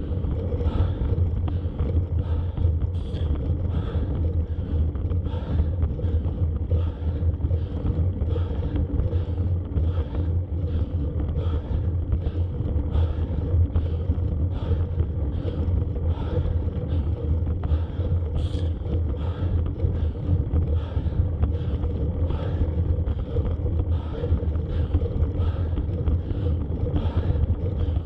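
Steady low rumble of a bicycle climbing a wet road as heard from a bike-mounted camera: tyre and road noise with wind on the microphone. A faint rhythmic pulse repeats about every three-quarters of a second.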